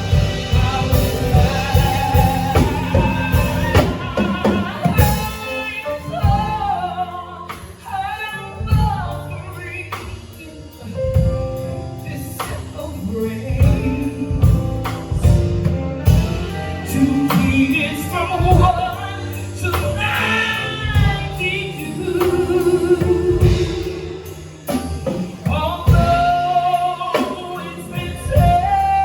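Live singing in a gospel style with instrumental accompaniment and a steady beat.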